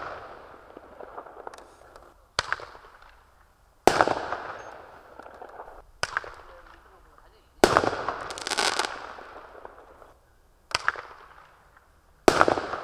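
Consumer single-shot firework tubes going off one after another: about six sharp bangs, irregularly spaced 1.5 to 3 seconds apart, each trailing off in a fading noisy tail.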